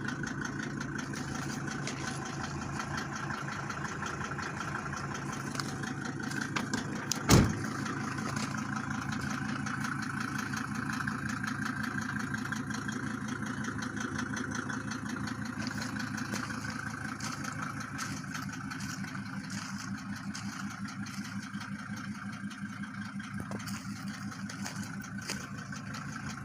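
Mercedes-Benz W124 300D's naturally aspirated straight-six diesel idling with its steady, typical indirect-injection diesel clatter. One sharp knock comes about seven seconds in.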